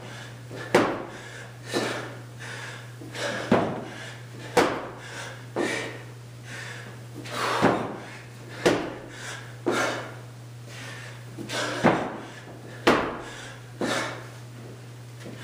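Repeated thuds of a person doing burpees on a concrete floor, the body dropping down and the feet landing from the jump, coming about once a second in groups of two or three.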